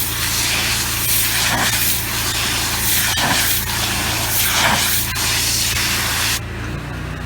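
Water spraying hard from the spray gun of an engine-driven pressure-washing rig: a loud steady hiss with a few surges, cutting off suddenly near the end. The engine's steady hum continues underneath, and its note shifts as the spray stops.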